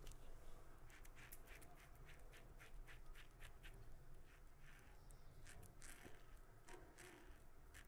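Faint scratchy strokes of a King C. Gillette double-edge safety razor with a Wizamet Super Iridium blade cutting short stubble through shaving cream: a quick run of about three to four short strokes a second, then a few slower, longer strokes.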